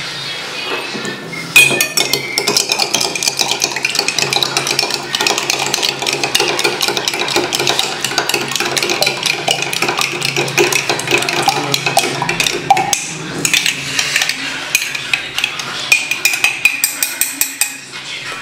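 Metal spoon beating raw egg yolks in a glass jar, clinking rapidly against the glass. The fast clinking starts about a second and a half in and runs on with a short let-up past the middle.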